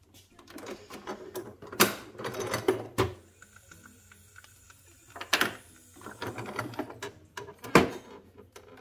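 Plastic clicks and knocks from a Delta Q capsule coffee machine being loaded: the lid is lifted, a capsule goes in, the lid is shut, and a cup button is pressed near the end. There are four sharp clicks, with rustling handling noise between them.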